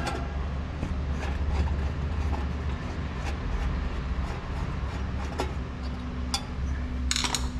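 Small metallic clicks and taps from a screwdriver working the wire terminals inside the base of a rice cooker, with a quick run of clicks near the end, over a steady low hum.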